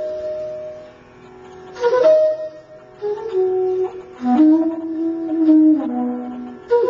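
Bansuri (bamboo transverse flute) playing slow alap in raga Shyam Kalyan: long held notes joined by slides. A held note fades over the first second, a new phrase begins about two seconds in, and the line glides down to settle on low sustained notes in the second half.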